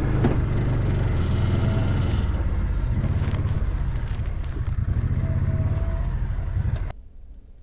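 Open utility vehicle's engine running while driving, a steady low rumble with rattle, cutting off abruptly about seven seconds in.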